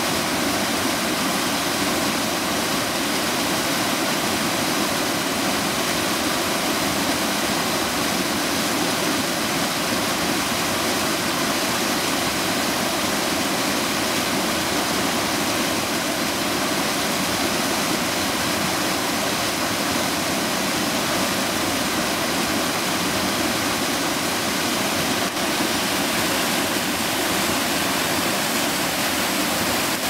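Small creek waterfall pouring over a rock ledge, a steady, even rush of falling and splashing water.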